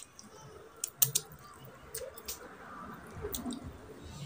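Close-up eating sounds: wet mouth clicks and lip smacks while chewing mutton curry and rice, with squishy sounds of fingers working the food. A sharp click about a second in is the loudest.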